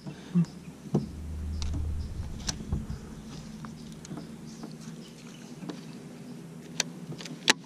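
A baitcasting rod and reel being handled, with a few sharp clicks spread out over several seconds. A low hum builds about a second in and fades a couple of seconds later.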